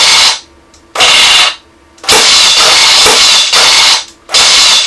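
M41A pulse rifle firing sound effects played by the soundboard of an airsoft pulse rifle replica, one burst per trigger pull. There are four rattling bursts of rapid fire, the third lasting about two seconds. The effects are picked at random from eight different pulse rifle sounds, so the bursts differ.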